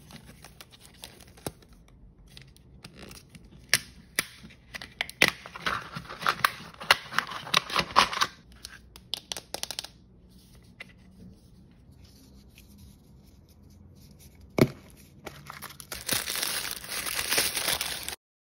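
Peeling, tearing and crinkling of the seal sticker and wrapper on a plastic L.O.L. Surprise toy ball, with scattered crackles and clicks. There is one sharp click a little after halfway, then dense crinkling of the crumpled wrapper near the end.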